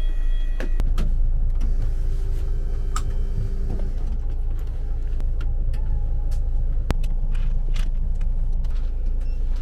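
Steady low rumble of the bus's idling engine, with an electric power-seat motor whirring at a steady pitch from about a second and a half in until about four seconds, and a few light clicks from the seat controls.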